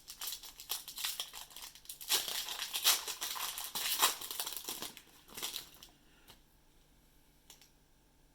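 Hockey card pack wrapper crinkling as it is handled and torn open, loudest in the middle, then only a few faint ticks after about six seconds.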